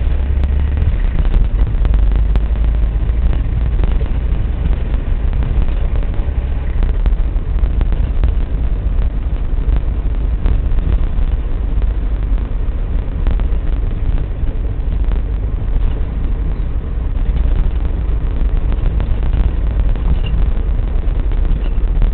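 Steady low rumble of a car on the move: engine and road noise, unchanging throughout.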